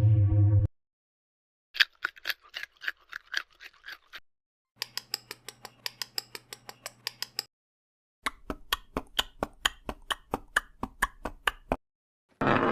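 Three separate runs of rapid clicks, several a second, with short silences between them; the middle run has a low steady hum under it. A buzzing tone cuts off just before the first run, and a loud noisy sound starts near the end.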